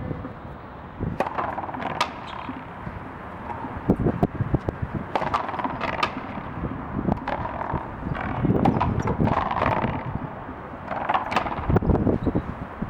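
A rally of frontón racket ball: sharp cracks of the ball off the rackets and the concrete front wall, coming at irregular intervals a second or so apart.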